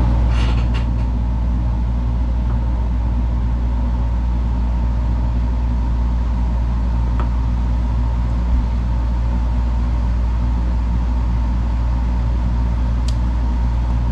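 Steady machine hum with a low drone and a faint higher whine running under it, unchanging throughout. A few faint light clicks as small pliers and spinner wire are handled.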